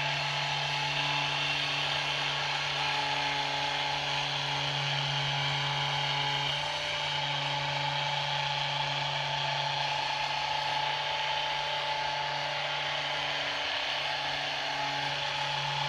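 Handheld Rapid Release Technology vibration therapy device running at about 150 Hz: a steady, even buzz while held against the muscles of the upper back.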